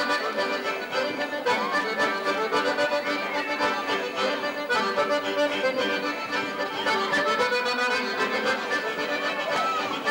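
Accordion playing a traditional Sardinian dance tune at a steady pace, with no break in the music.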